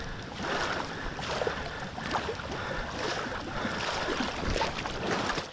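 Water sloshing and splashing in small irregular bursts as a dog swims a retrieved duck back through the water.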